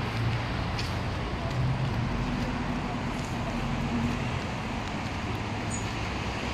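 Steady outdoor background of road traffic, with a low engine hum that waxes and wanes slightly.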